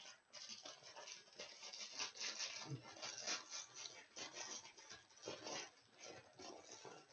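Postal packet rustling and crinkling as it is handled and opened, a faint run of irregular crackles and scrapes.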